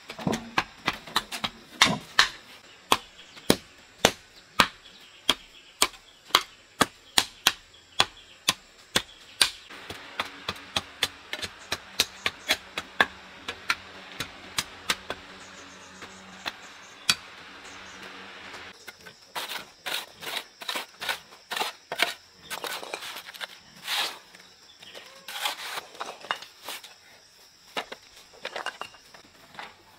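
A long series of sharp knocks or strikes, about two a second, becoming more irregular and bunched in the second half, like a tool repeatedly hitting wood.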